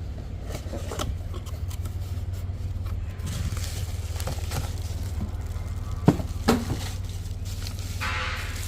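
Steady low mechanical hum with scattered light clicks, and two sharper knocks about six seconds in.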